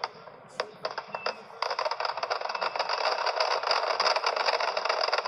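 Firecrackers packed into a burning Dussehra Ravan effigy going off: a few separate sharp bangs, then from about a second and a half in a dense, continuous crackle of many small explosions.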